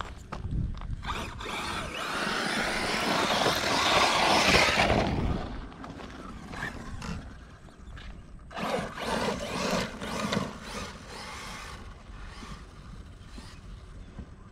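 ARRMA Mojave RC desert truck driving hard across loose sand, its tyres churning and spraying sand along with the motor's whirr. It swells loud about two seconds in and fades by about five seconds, then comes back for a second, shorter run about halfway through.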